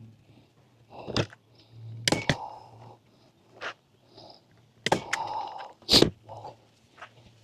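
Panels of a camper platform kit being handled and fitted, with about six sharp knocks and thunks and scraping in between; the loudest knock comes near the end.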